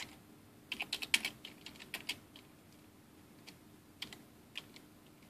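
Computer keyboard keys clicking: a quick run of keystrokes about a second in, then a few scattered single presses, over a faint steady hum.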